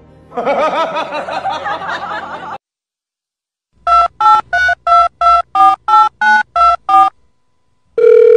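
Telephone keypad tones: about ten short two-tone beeps, about three a second, as when dialling a number, followed near the end by a loud steady dial tone. Before them comes a wavering vocal sound for about two seconds, then a short pause.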